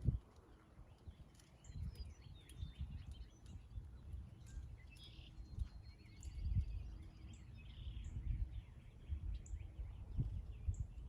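A horse's hooves thudding dully on arena footing at an irregular pace, with small birds chirping now and then above it and a short trill about halfway through.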